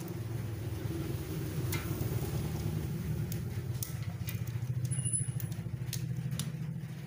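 Low, steady hum of an engine running, with a fine rapid pulse, swelling a little in the middle. A few light clicks sound over it as a rubber band is wound around a tin can.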